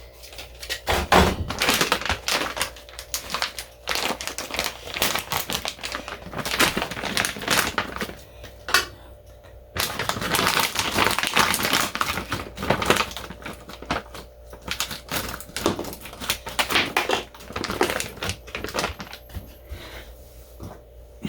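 Rapid, irregular tapping, clattering and scraping of kitchen utensils and dishes, coming in bursts with short pauses.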